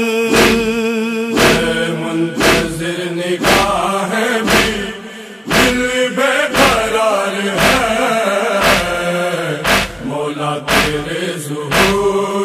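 Noha chanting by a group of men's voices, a held melodic refrain, over a steady chest-beating (matam) beat of about one stroke a second.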